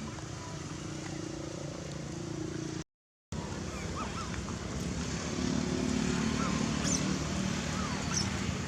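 A motorcycle engine running close by, its hum growing louder about halfway through, with a few short high chirps over it. The sound cuts out completely for a moment about 3 s in.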